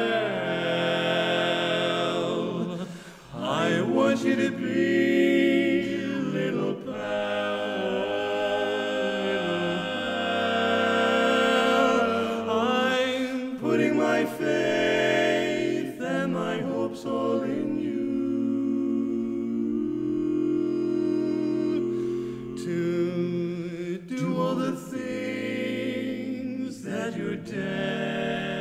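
Male barbershop quartet singing a cappella in four-part harmony, holding chords that shift every few seconds, with a brief break for breath about three seconds in.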